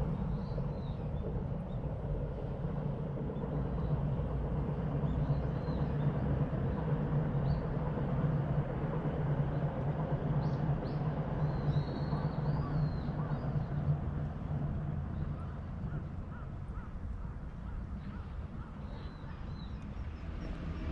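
Steady low rumble of distant road traffic, swelling a little and easing off after about three-quarters of the way through, with short, high bird chirps now and then over it.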